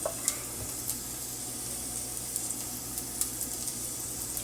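Onion and habanero pepper sizzling gently in a pan on low heat: a steady fizz with occasional light crackles.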